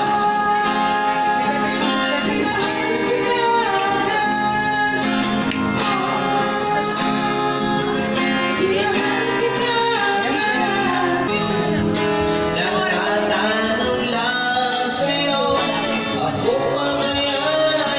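Background song with acoustic guitar and singing.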